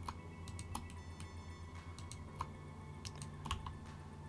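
Irregular light clicks from a computer keyboard and mouse as the modelling software is worked, over a faint steady hum.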